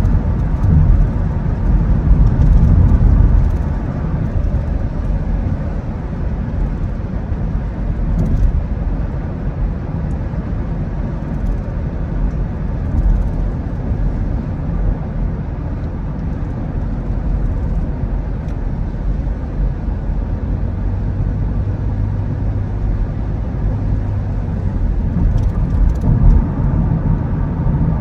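Car driving on a road: a steady low rumble of tyres and engine, louder for the first few seconds, with a low steady hum joining for a few seconds after the middle.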